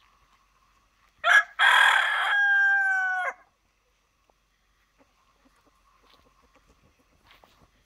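Rooster crowing once: a single cock-a-doodle-doo of about two seconds, starting about a second in, with a short opening burst and a long drawn-out last note that drops at the end. Faint soft hen clucks follow.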